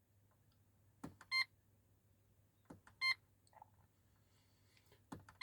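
Holden VY Commodore instrument cluster giving short electronic beeps as the dash menu is stepped through, each beep just after the click of a button press. There are two beeps about a second and a half apart and a third right at the end.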